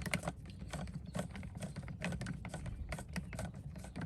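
Screwdriver tightening the screws of an outdoor outlet's cover: a run of irregular light clicks and small scrapes, several a second.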